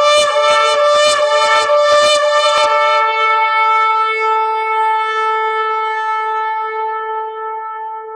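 Shofar blown: a run of quick short blasts, about three a second, then one long held note that slowly fades.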